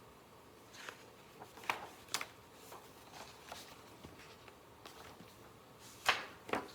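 A few brief rustles and soft taps of a picture book being handled and its pages opened, the loudest about six seconds in.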